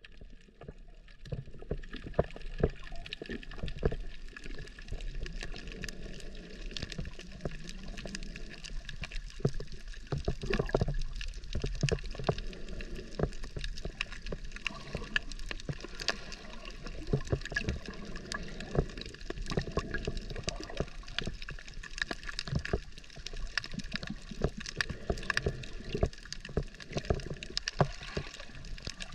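Underwater sound picked up with the microphone submerged: muffled water movement and low rumble, with many sharp clicks and crackles all the way through.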